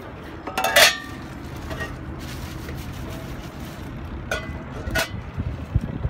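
A few sharp metallic clinks with a brief ring: a loud one about a second in, then two lighter ones near the end, over a steady low rumble of wind and distant city.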